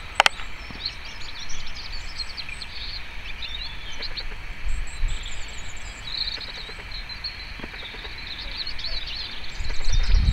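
European robin singing quietly: a soft, rambling warble of high, quick twittering phrases with short gaps between them, over a low rumble that swells near the end.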